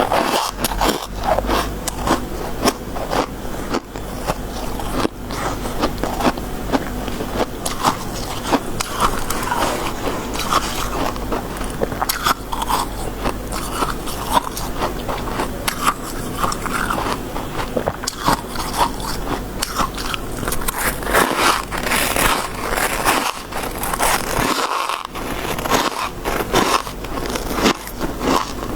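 Close-up crunching of soft, snow-like freezer-frost ice being bitten and chewed, a dense run of crisp crackles that keeps going without a break.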